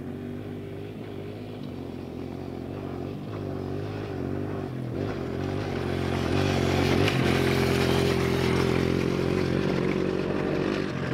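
Kawasaki KLX 140G dirt bike's 144cc air-cooled single-cylinder four-stroke engine under way on a dirt trail. Its note rises and drops a few times with the throttle. It grows louder as the bike approaches and passes, then eases off slightly near the end as it rides away.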